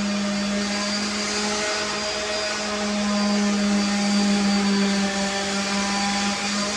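A small electric motor running steadily, with a constant hum over a rushing, airy noise.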